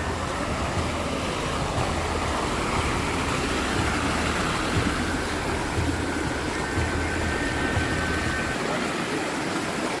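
Rushing water, a steady loud hiss of a stream or falls, with irregular low rumbling bumps underneath.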